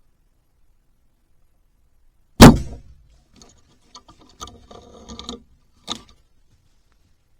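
A bow being shot: one loud, sharp crack about two and a half seconds in that rings briefly. Scattered rustling and light clicks follow for a few seconds, then one more sharp click near six seconds.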